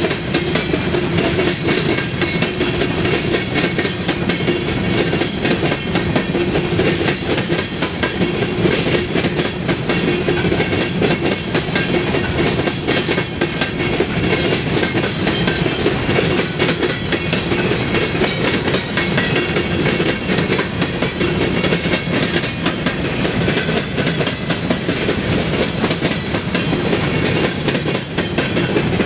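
Empty coal hopper cars of a freight train rolling past, their steel wheels clicking and clattering steadily on the rails over a continuous rumble.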